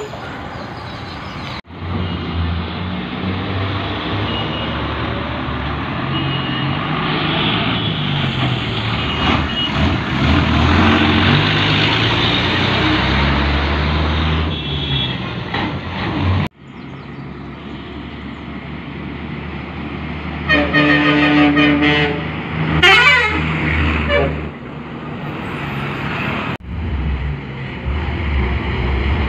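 Buses' diesel engines running and pulling away close by, the engine note rising and falling, with a long multi-note horn blast about two-thirds of the way through and a shorter horn with a wavering pitch just after it.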